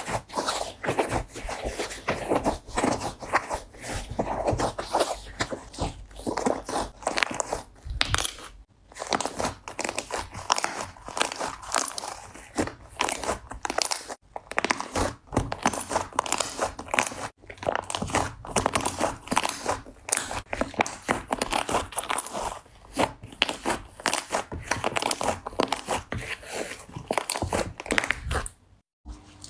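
Slime being squeezed and poked by hand, making a dense run of crackling, popping clicks, cut into short clips by a few brief gaps.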